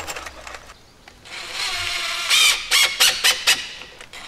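Cordless drill whining as it drives screws into a door deadbolt. It runs steadily from about a second in, then in about five short trigger bursts.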